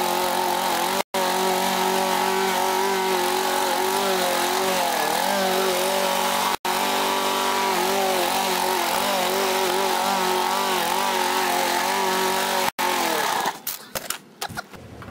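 Walk-behind gas lawn mower running steadily while cutting long grass, its pitch dipping briefly about five seconds in. The sound cuts out for an instant three times and stops near the end.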